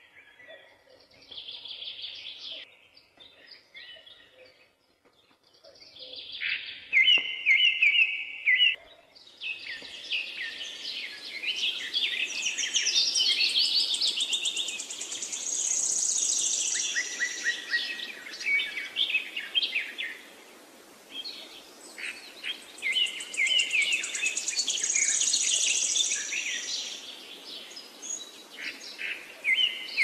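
Wild birds singing and calling, many short chirps and trills. They are sparse for the first nine seconds, then swell into a dense chorus over a steady hiss.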